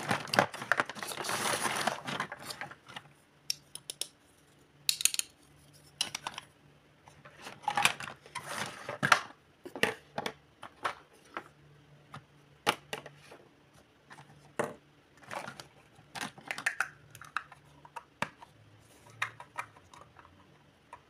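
Small hard-plastic toy dishes, cups and play food clicking and clattering against each other as hands sort through a pile of them. A dense clatter in the first two seconds, then scattered knocks and short bursts of rattling.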